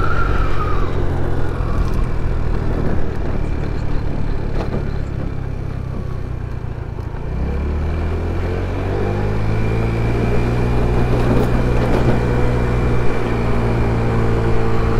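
GY6-type 50cc four-stroke single-cylinder scooter engine running while riding. It is eased off and quieter for a few seconds. About halfway through the throttle opens, and the engine note climbs in pitch and then holds steady as the scooter picks up speed.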